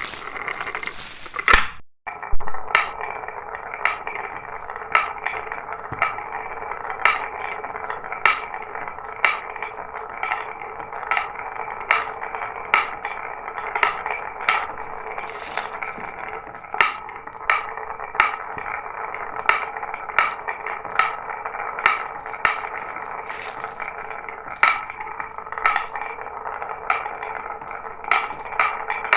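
Marbles rolling down a marble run track with a steady rolling rumble, clicking and clacking about once or twice a second as they hit turns and drops. The sound cuts out briefly about two seconds in, then returns with a sharp click.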